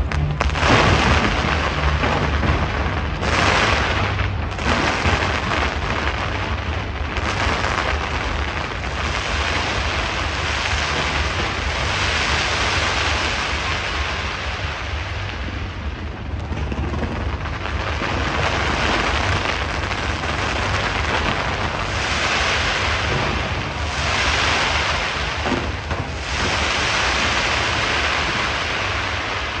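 Aerial fireworks going off in a dense, continuous barrage: many overlapping bangs and crackles over a steady deep rumble.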